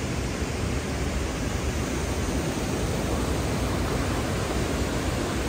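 Steady rushing of river water pouring over a low weir.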